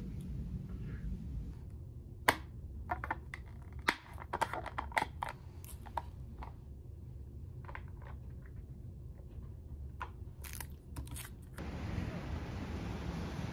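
Crinkling and crackling of a plastic convenience-store café latte cup being opened, its film lid handled and a straw put in, in a run of sharp clicks for several seconds and another cluster later on. Near the end the sound gives way to steady street noise.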